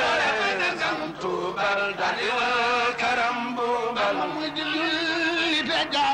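Men chanting a Mouride khassida, Arabic devotional verse, in a melodic chant with held notes that bend in pitch.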